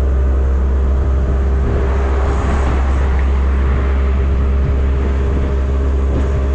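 Auto-rickshaw's small engine running steadily as it drives along, heard from the open passenger seat over a heavy steady rumble of road and wind noise. A rush of hiss swells and fades about two to three seconds in.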